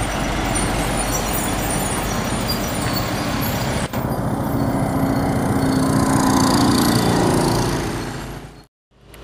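Diesel box truck driving close past, engine and tyre noise, followed by a steady engine drone from passing traffic on the road that swells and then fades out near the end.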